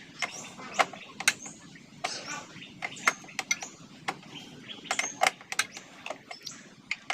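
Irregular sharp metallic clicks and knocks of an open-end spanner working a tight nut on a scooter's rear wheel, loosening it a little at a time.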